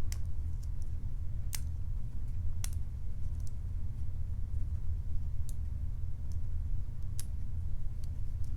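A few sharp, irregular clicks of a lock pick and tension wrench working the pins inside a Matlock 2508 padlock, over a steady low hum.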